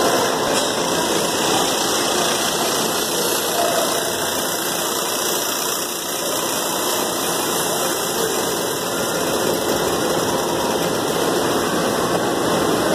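Steady, loud machinery noise of a slaughterhouse processing line, an even, unbroken running sound.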